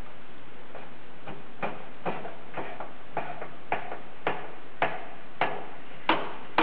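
Hydraulic shop press pressing a bearing onto a Bridgeport back-gear shaft through a piece of tubing: sharp clicks come about twice a second, growing louder toward the end as the press fit takes more force.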